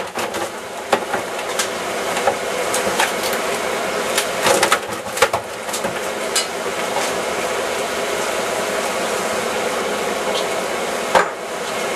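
Steady drone of a fishing boat's engine, with scattered knocks and clatter from work on the deck: a few early, a cluster about four to five seconds in, and one sharp knock near the end.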